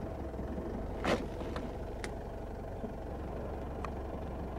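A vehicle engine idling steadily, with a few faint clicks and one short sharp noise about a second in.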